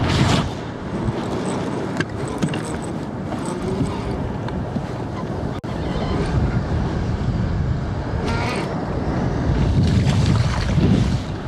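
Wind buffeting the microphone over the steady rush of river water around a boat, with a few small clicks and knocks.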